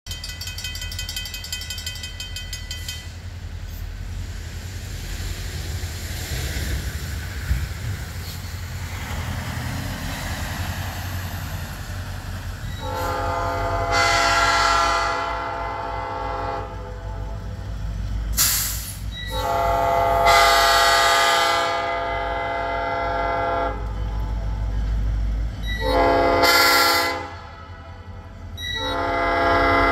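Diesel locomotive air horn sounding the grade-crossing signal as the train approaches: two long blasts, one short, then a final long blast that begins near the end. A steady low rumble runs underneath.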